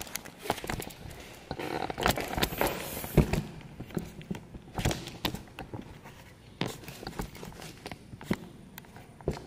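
Footsteps on a hard tiled floor, with irregular knocks and rustles from a handheld phone camera being carried, busiest about two to three seconds in.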